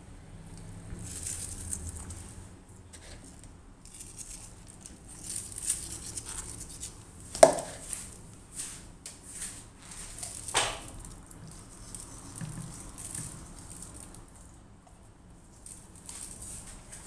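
Light rustling and scattering sounds of whole sea bream being salted and handled in an oven dish, with two sharp knocks about seven and ten seconds in.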